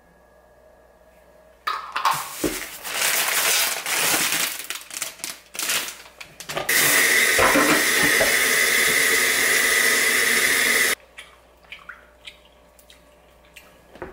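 Kitchen tap water pouring onto green grapes in a plastic colander in a stainless-steel sink. It splashes unevenly at first, then runs as a steady full stream for about four seconds and shuts off suddenly. A few light clicks of handling follow.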